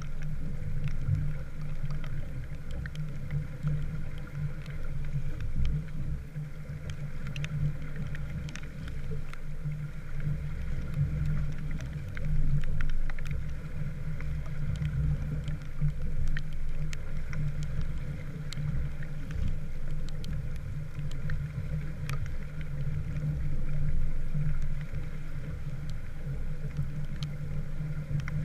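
A small wooden sailboat underway: a steady low rumble of wind and water on the microphone, rising and falling in strength, with scattered sharp ticks throughout.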